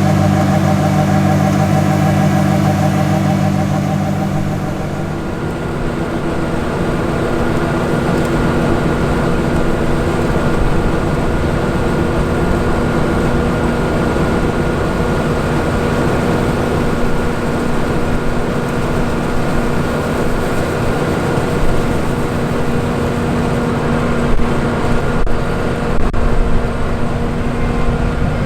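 John Deere 7720 Turbo combine's diesel engine and threshing drives running steadily while harvesting wheat. For the first few seconds a strong low engine note dominates. About five seconds in it gives way to a rougher rumble with steady whining tones, and a few knocks come near the end.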